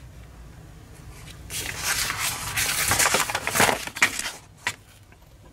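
Sheets of paper being handled and flipped, rustling and crinkling for about three seconds, with a couple of sharp clicks near the end.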